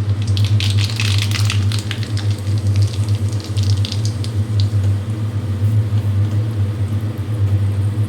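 Dried red chillies and nigella seeds sizzling and crackling in hot oil in a kadai. The crackling is busiest in the first few seconds and thins out after that, over a steady low hum.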